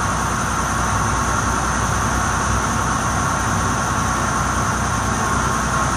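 Steady drone of a river passenger boat's engine running under way, heard from the open deck, mixed with an even rushing noise of water and air.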